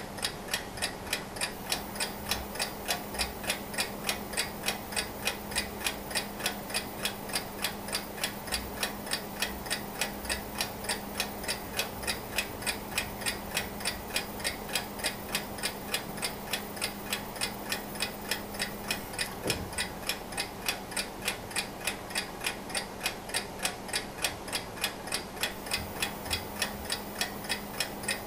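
Antique Junghans mechanical alarm clock from the 1920s–30s, ticking steadily and evenly.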